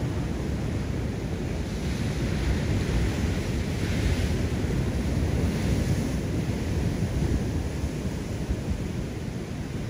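Rough sea surging and breaking against the rocks below a cliff, with wind buffeting the microphone into a low rumble. A wave washes in louder and hissier about four to six seconds in.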